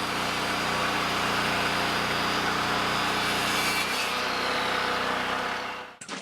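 Engine-driven power saw cutting through wood: a steady, dense cutting noise over a running engine, fading out near the end.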